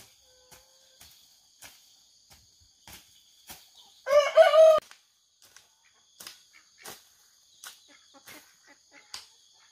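A rooster crows once, briefly, about four seconds in. Behind it there is a steady high insect drone and faint knocks about every half second.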